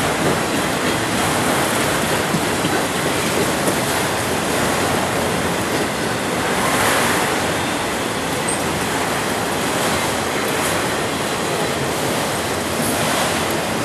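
Freight train of autorack cars rolling past, a steady noise of wheels on rail that swells slightly about halfway through.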